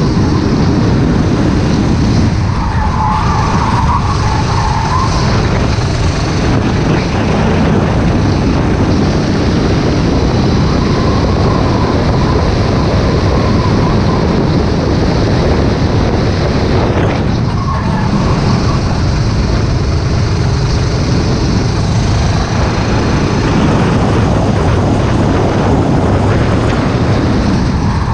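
Race kart engine running hard at racing speed, heard onboard with wind on the microphone. The engine note dips briefly a few times, about three seconds in, around seventeen seconds and again at the end, as the kart slows for corners.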